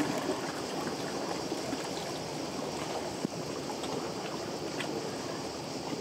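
Small lake waves lapping at the shore: a steady wash of moving water with a few faint splashes.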